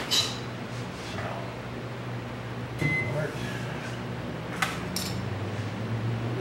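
Steady low electrical hum of an appliance running, with a few light clicks and taps as small objects are handled on the table, about three seconds in and again near five seconds in.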